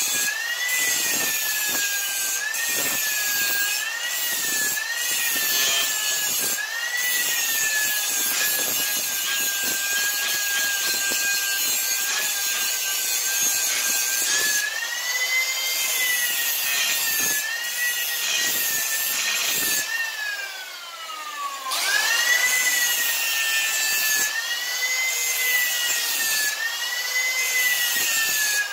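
Angle grinder whining as its disc grinds the steel cutting edge of a lawn mower blade, sharpening it; the pitch wavers up and down as the disc is pressed into the steel. About two-thirds of the way through, the grinder winds down, its pitch falling, then spins back up and keeps grinding.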